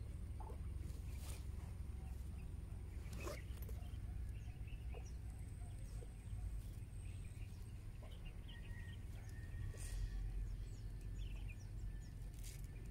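Outdoor night ambience: many small, faint chirps of small animals scattered over a low steady rumble. A few short clicks come through now and then.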